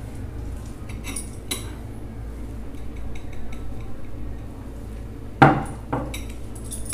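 Hands mixing flour into a wet sugar-syrup and ghee dough in a steel plate, with light clicks on the metal and one sharp knock about five seconds in, followed by two lighter knocks.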